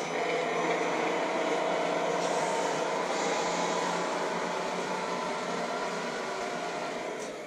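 Tamiya Mercedes-Benz Arocs 3348 radio-controlled tipper truck running as it drives off across a tiled floor. The sound is steady and fades near the end as the truck moves away.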